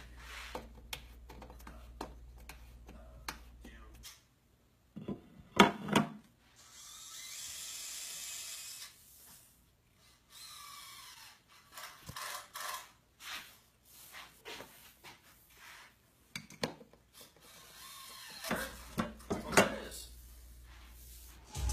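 Workshop handling noises: scattered knocks and clicks of tools and wooden parts, two louder knocks about five to six seconds in, and a hiss lasting a couple of seconds soon after. A low hum runs under the first four seconds and comes back near the end.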